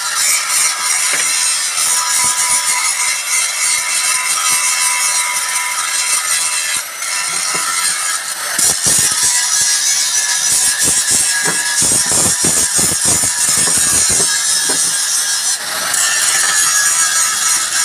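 Steady loud hiss of workshop machinery with a thin constant whine throughout. About halfway in, a run of hammer blows on steel, about two a second for several seconds, as a truck lift-axle bush is knocked out with a pipe drift.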